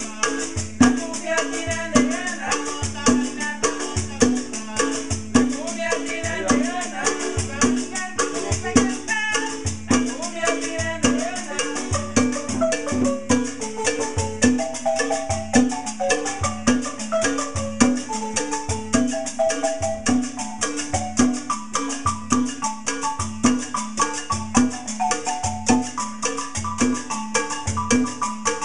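Wooden marimba played with mallets in a quick, running melody, over a hand-played conga drum and a metal shaker keeping a steady rhythm.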